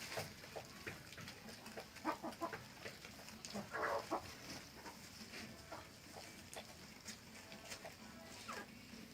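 Chickens clucking, many short calls scattered through, with one louder, longer call about four seconds in.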